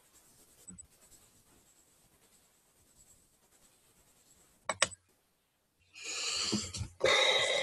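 Near silence at first, then a quick pair of computer mouse clicks about four and a half seconds in, followed near the end by a scratchy rubbing noise close to the microphone, with a brief break in the middle.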